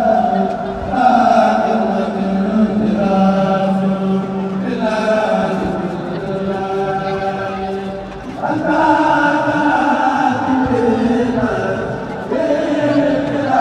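Voices chanting a devotional song praising Touba in unison, with long held notes.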